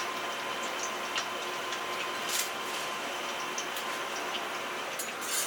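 Café kitchen food-preparation sounds: a steady hiss with a few sharp light clicks, loudest about two and a half seconds in and near the end.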